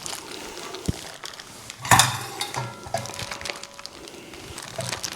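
Kitchenware being handled: a colander and dishes clinking and knocking, with one sharp, loud knock about two seconds in.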